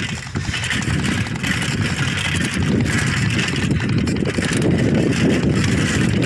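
A vehicle travelling along a rough unpaved dirt road: a steady, dense rumble and rattle.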